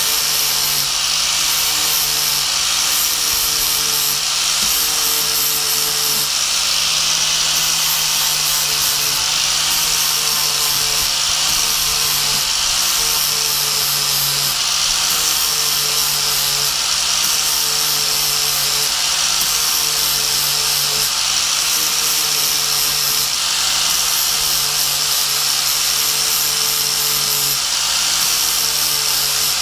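Angle grinder with a flap disc grinding the flat face of a steel hedge trimmer blade, running steadily with a hissing grind. Its motor tone shifts slightly every second or two as the disc is worked across the blade, flattening off the damage.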